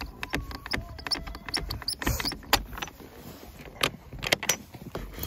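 Metal barrel bolt latch on a wooden coop door being slid and rattled open, then the door pulled open: a run of sharp clicks and knocks, with a brief scraping rush about two seconds in.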